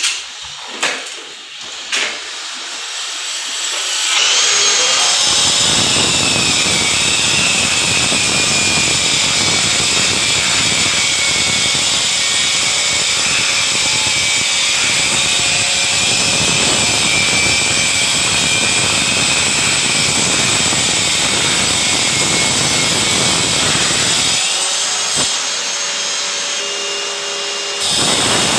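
A Hilti DC-SE 20 wall chaser starts about four seconds in, after a few handling knocks. It runs steadily with a high motor whine as its blades cut a groove into the wall. Near the end it drops briefly to a lighter, thinner hum, then runs up loud again.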